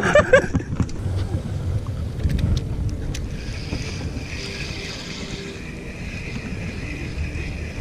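Wind rumbling on the microphone over water sloshing around a small boat, with a few light clicks about two to three seconds in and a faint high whine in the second half.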